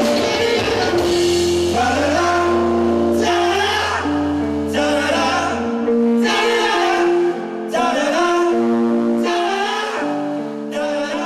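Live rock band playing: electric guitars and bass holding sustained notes over drums, with cymbal crashes recurring every second or two.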